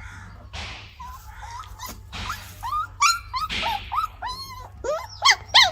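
Gaddi dog puppy whining and yipping in a string of short, high-pitched cries mixed with breathy huffs. The cries get louder toward the end, where there are two sharp yips.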